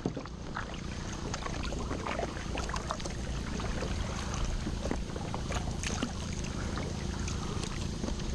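Double-bladed kayak paddle strokes dipping and splashing in calm sea water, with many small splashes and drips over a steady low rumble.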